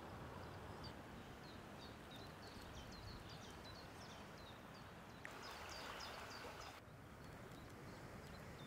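Small birds chirping in quick, short high notes, several a second, over a faint steady low background noise. About five seconds in, a hiss rises for about a second and a half and then stops.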